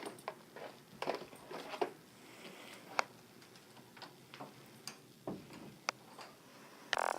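Faint, irregular clicks and taps, a few seconds apart, with a short, denser burst of sound near the end.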